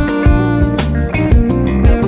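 Smooth jazz instrumental: guitar over a bass line and a steady drum beat.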